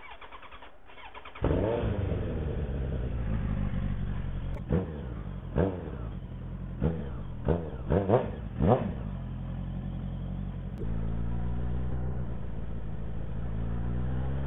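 A 1200 cc motorcycle engine running with its muffler removed, on an open exhaust. It starts about a second and a half in, its revs settling, then gives a string of about seven short throttle blips before pulling away steadily.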